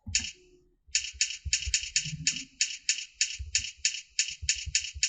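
Computer keyboard keys being typed in quick succession, about four crisp clicks a second, in a beginner home-row drill.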